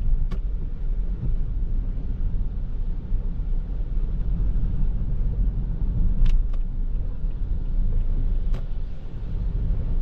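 Toyota Prius α driving on a wet road: a steady low rumble of road and tyre noise. There are a few sharp clicks, one just after the start and three more in the second half.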